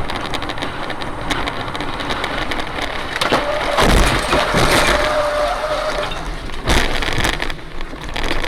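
Steady vehicle and road noise, broken about three seconds in by loud crashing and breaking impacts, with another sharp crash near the end.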